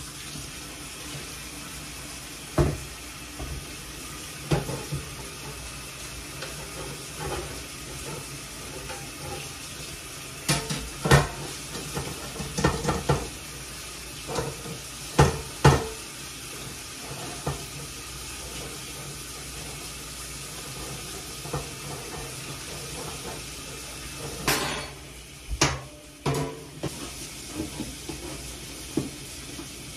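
Water running steadily from a tap into a sink, with dishes knocking and clinking now and then, busiest in the middle and again near the end.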